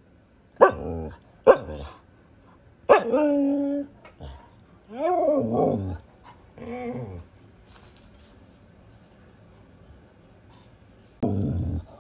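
Siberian husky barking twice, then giving several drawn-out vocal calls whose pitch rises and falls, with another short bark near the end.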